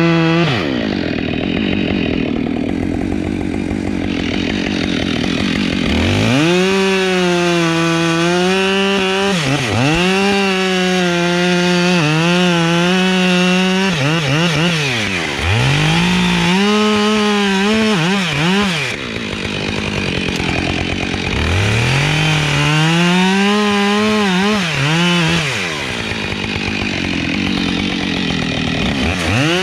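Chainsaw cutting wood at full speed, its pitch wavering under load. Several times the revs drop sharply as the trigger is let off and then climb straight back up.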